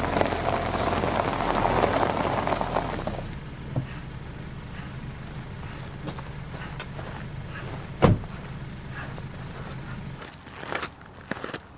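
A Hyundai Tucson's car door shutting with one sharp thud about eight seconds in, the loudest sound, then footsteps crunching on gravel near the end. A rushing noise fills the first three seconds over a low hum.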